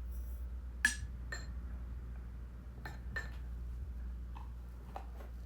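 Glass jars and containers clinking while yogurt is dished up: a handful of sharp clinks with a short ring, the loudest about a second in, over a steady low hum.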